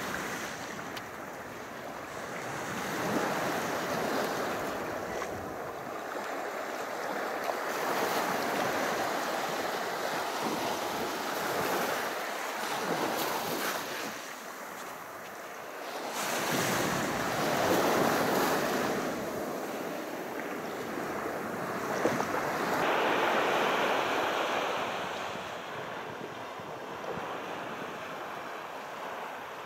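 Sea waves breaking and washing up the shore, swelling and fading every few seconds.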